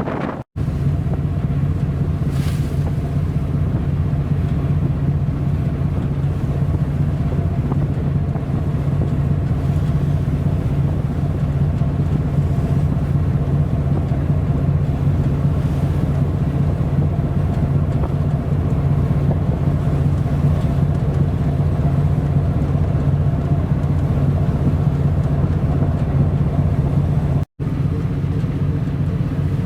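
A ship's engine running with a steady low drone, unchanging throughout, with two momentary drops to silence, one about half a second in and one near the end.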